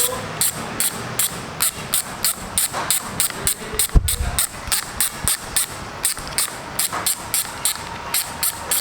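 Background music with a steady electronic beat and crisp hi-hat ticks about four times a second. About four seconds in there is a single low thump.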